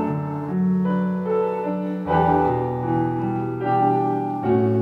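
A hymn tune played on piano: held chords that change about once a second.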